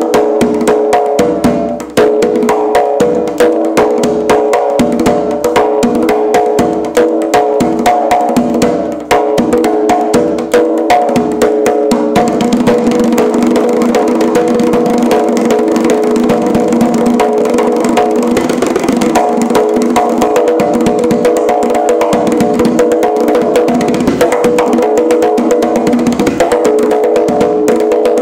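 Darbuka (goblet drum) played solo by hand: a dense run of rapid strikes on the drum head, turning about twelve seconds in into fast unbroken rolls at an even level.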